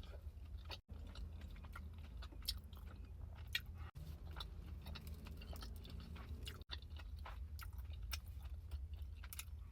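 A person chewing a mouthful of Taco Bell Crunchwrap Supreme close to the microphone, with many small, quick crunchy clicks from the crisp shell.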